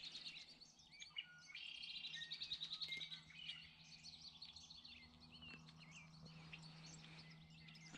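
Faint outdoor birdsong: several birds chirping and singing, with a rapid trill about one and a half to three seconds in, over a faint steady low hum.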